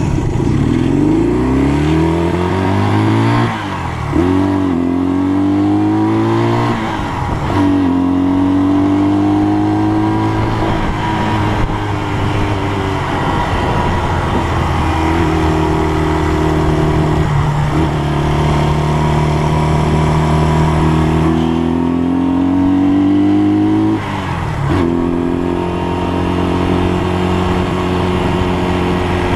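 Honda CL175's parallel-twin engine riding away and accelerating through the gears: the pitch climbs and drops back at each of several gear changes, with steadier stretches at cruising speed between them.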